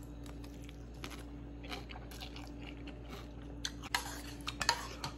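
A man chewing a mouthful of noodles from a noodle soup, a run of short wet clicks and smacks with a few louder ones near the end. A steady low hum runs underneath.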